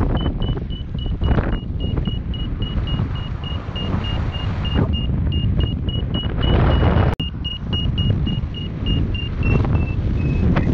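A paraglider's variometer beeping about three times a second at a high, nearly steady pitch, which is its climb tone signalling rising air. The beeps drop a little in pitch near the end, over heavy wind rush on the microphone that makes up most of the sound.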